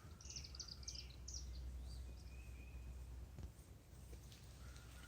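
A small bird singing a quick run of about six high chirps, then a faint thin whistle, over a steady low outdoor rumble.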